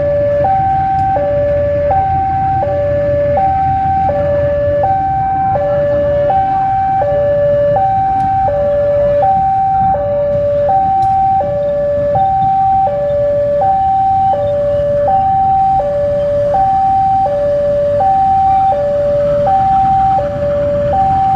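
Two-tone electronic railway warning alarm, a higher and a lower note alternating evenly, each held a little over half a second, over the low running of a KAI diesel locomotive's engine as it moves slowly.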